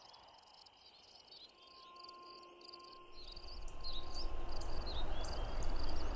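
Crickets chirping in a field, with a few short bird chirps. From about three seconds in, a rushing noise with a low rumble swells up beneath them and grows louder.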